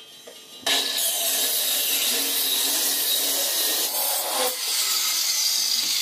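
Handheld electric circular saw starting about a second in and cutting steadily through a plywood sheet.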